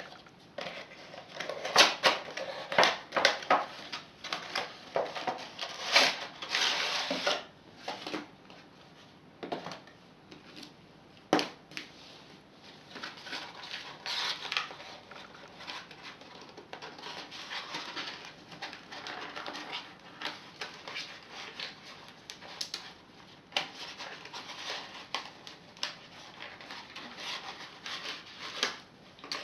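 Hands unboxing a toy set: irregular rustling, crinkling and sharp clicks of packaging being handled and pulled open, busiest in the first several seconds.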